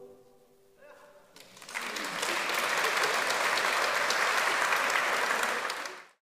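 After a brief hush, audience applause breaks out about a second and a half in, holds steady, and cuts off abruptly near the end.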